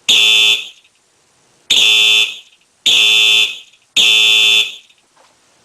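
Simplex 4903-9422 electronic fire alarm horn sounding the Code 3 (temporal-three) evacuation pattern with a high-pitched electronic tone: one blast, a pause of about a second, then three blasts in quick succession before it cuts off.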